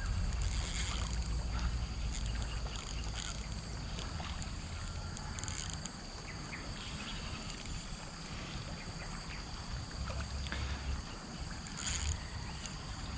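Low rumble of wind buffeting the microphone over steady outdoor ambience, with a few faint short sounds.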